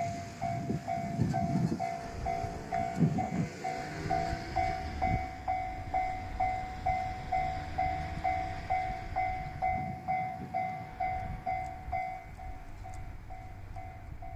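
A Japanese level-crossing warning bell dings steadily at roughly two and a half strikes a second. Under it a passing train rumbles and clatters, loudest in the first few seconds and then fading.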